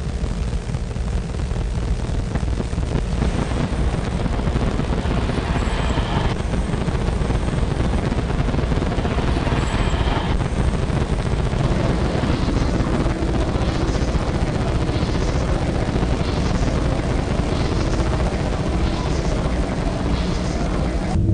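Sound-design soundscape: a loud, dense rumbling noise that runs on steadily.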